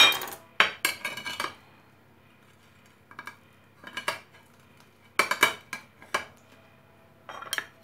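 A metal blade cutting through a crisp, flaky almond-topped msemen on a ceramic plate: crunching with clinks and scrapes of metal on the plate. There is a cluster of strokes at the start, then separate strokes about every second.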